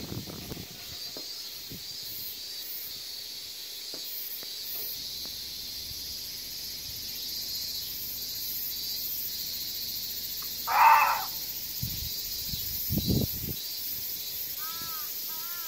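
Reeves's muntjac giving a single short, loud bark about eleven seconds in, over a steady high hiss. A lower, duller sound follows about two seconds later, and a few faint arched chirps come near the end.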